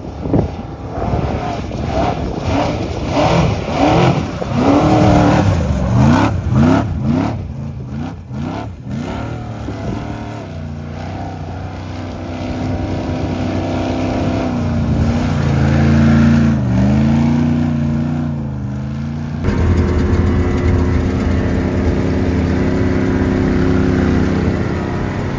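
Prerunner truck engine revving hard in quick repeated rising and falling sweeps, then holding a steady high note with one brief dip. About 19 seconds in it changes abruptly to another prerunner's engine running steadily.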